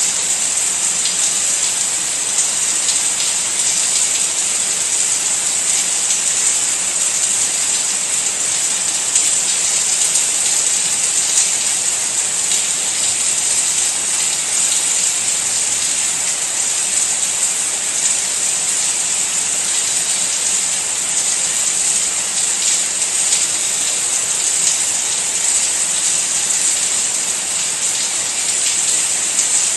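Steady rain falling: a dense, even hiss with faint scattered drop ticks, holding at the same strength throughout.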